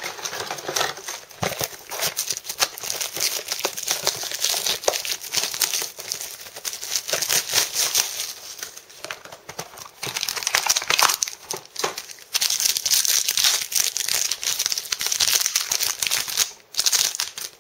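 Plastic-foil trading card booster pack wrapper crinkling continuously as it is handled and torn open.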